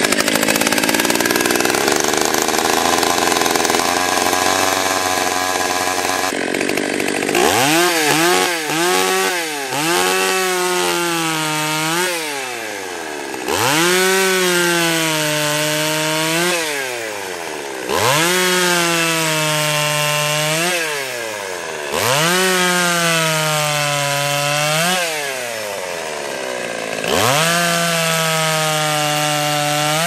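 Stihl 020 two-stroke chainsaw idling after a cold start, then revving a few times and running at full throttle in about five long stretches as it cuts a log into firewood rounds. The engine's pitch climbs sharply at each stretch, sags slightly under load, and drops back to idle between cuts.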